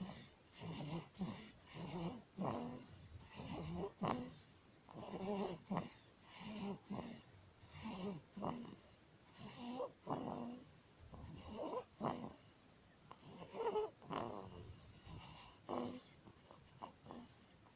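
Newborn baby breathing with stridor: a noisy, pitched sound on every breath, about one breath a second, the sign of laryngomalacia.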